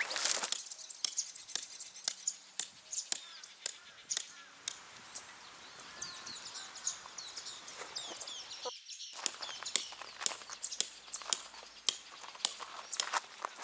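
Birds chirping, with scattered light clicks and knocks throughout; the sound drops out briefly about nine seconds in.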